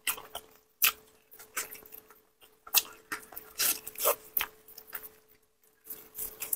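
Close-miked eating sounds: biting, sucking and chewing meat and skin off a braised pork trotter bone, in irregular sharp smacks and short bursts.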